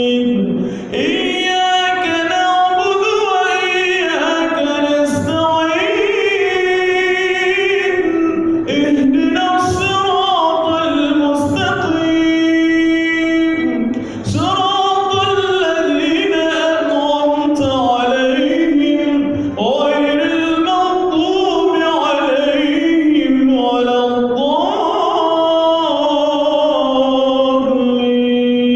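A male imam reciting the Quran aloud in a slow, melodious chant, with long held notes that wind up and down in pitch and brief breaths between phrases.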